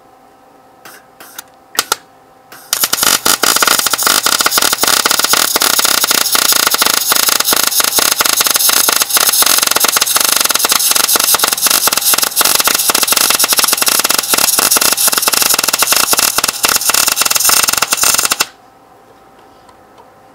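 MIG (wire-feed) welder arc crackling as a bead is run on steel tubing: a couple of brief arc crackles about a second in, then a steady, continuous crackle for about sixteen seconds that cuts off suddenly near the end.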